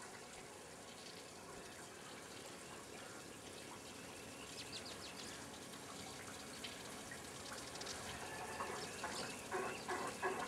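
Near silence at first, then faint background sound with short clicks and chirps fading in and growing louder toward the end.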